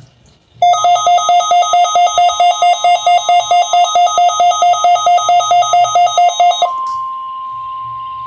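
Weather radio receiver sounding an electronic alert: a rapid warbling beep at about four pulses a second starts about half a second in, then switches near the end to the single steady NOAA Weather Radio warning alarm tone, sent as the station's weekly test of the alarm.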